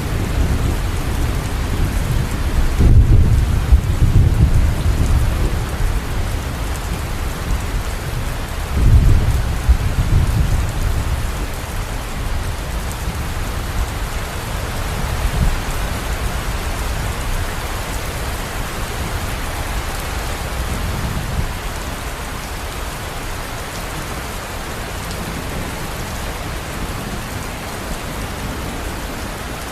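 Steady rain falling, with low rolls of thunder: two louder rumbles about three and nine seconds in, then the rain alone easing slightly.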